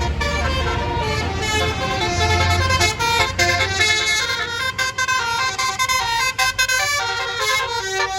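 Bus telolet horn, a Basuri multi-tone musical air horn, playing a quick stepping melody of several tones at once, loud, over the bus's engine running low underneath.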